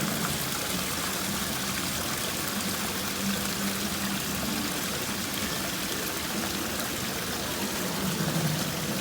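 Steady rushing background noise with a faint low hum.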